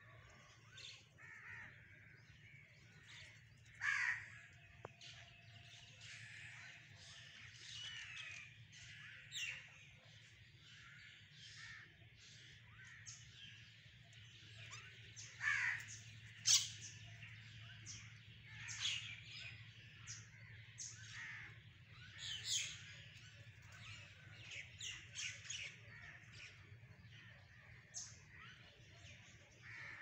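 A flock of mynas calling as they feed: a continual run of short harsh calls and squeaky chirps, with a few louder calls about four seconds in, around the middle and again a little later.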